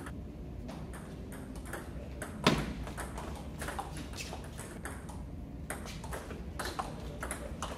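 Table tennis ball clicking off rubber paddles and the table during a practice rally, with one louder knock about two and a half seconds in. The strokes come thick and fast in the last couple of seconds.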